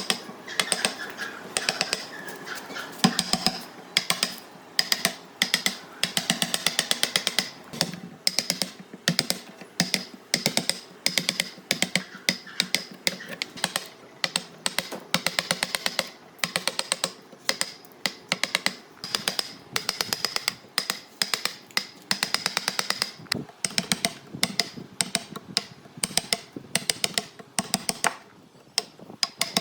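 Rapid light tapping in short clusters of several sharp taps, repeating about once a second.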